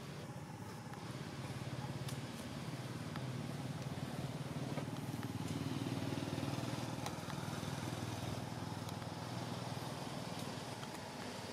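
Low, steady engine hum of a passing motor vehicle, swelling about halfway through and then fading, with a few faint clicks.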